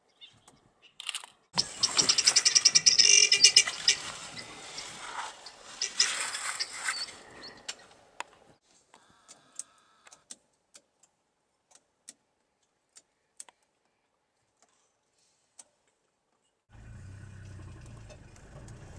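Guineafowl giving a loud, fast rattling alarm cackle for about six seconds, a flock's warning of a predator close by. Then a few scattered faint clicks, and near the end the steady low hum of a safari vehicle's engine idling, heard from inside the cabin.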